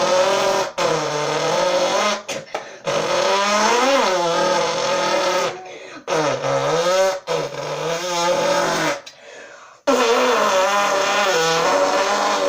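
A boy imitating a car engine with his mouth in one long routine: a string of vocal revs whose pitch climbs and drops again and again, broken by several short pauses.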